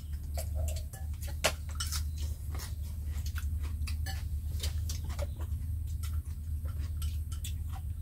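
Meal sounds: irregular, quick clicks and taps of chopsticks against ceramic bowls and the crunch of crispy fried fish being chewed, over a steady low hum.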